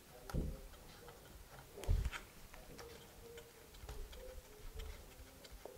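Clicks and knocks from a Flexaret twin-lens reflex camera's metal body and fittings being handled while it is readied for loading film: two sharper knocks, about half a second and two seconds in, then several lighter clicks.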